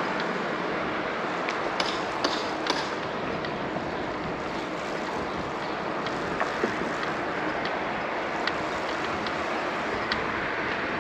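Steady rushing noise of a bicycle in motion, wind and tyres on the road, with scattered light clicks and rattles, a small cluster of them about two seconds in.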